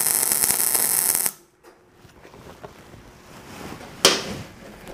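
Millermatic 252 MIG welding arc burning steadily, then cutting off abruptly about a second in as the spot timer, set to 2, ends the weld. A short burst of noise follows near the end.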